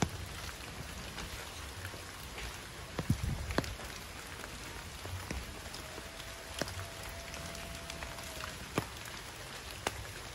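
Steady rain falling on forest foliage, with scattered sharp taps of heavier drops striking leaves.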